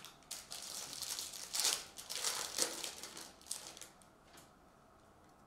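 Foil trading-card pack wrapper crinkling and tearing as a pack is pulled open by hand: a run of crackling rustles for about four seconds, loudest near the middle, then stopping.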